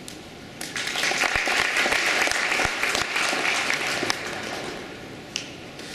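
Audience applauding, starting about a second in and dying away over the next few seconds.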